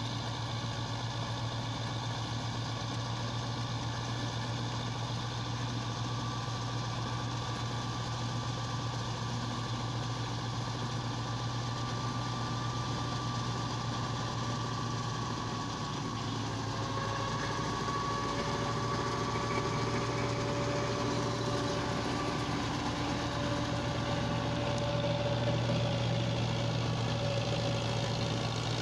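Russian-built 'Rusi' 510 tractor's diesel engine running steadily under load, driving a PTO straw chopper that is cutting wheat stubble into straw (tudi). A continuous drone with a steady whine, getting louder in the second half.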